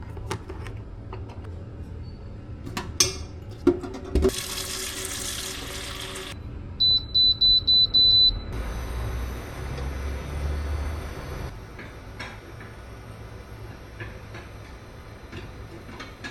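Kitchen sounds: a few light clicks and knocks, then water running from a tap for about two seconds. This is followed by a quick run of five electronic beeps, like an appliance's keypad or timer, and then a steady hum of an appliance running.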